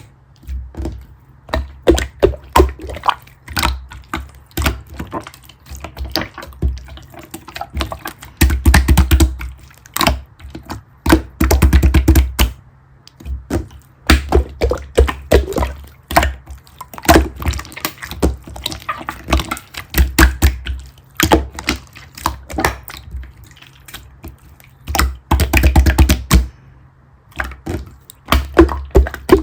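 Blue pearl slime being played with by hand: squished, pressed and poked, giving quick irregular runs of sticky clicks and pops with short pauses between.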